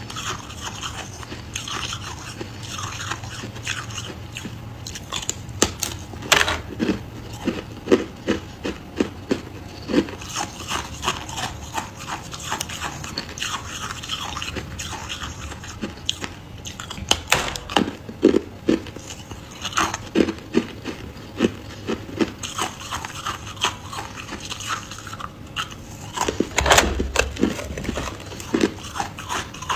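Close-up biting and chewing of white freezer frost: many sharp, irregular crunches as the packed frost is bitten off and crushed between the teeth. Near the end there is a louder knock and rustle.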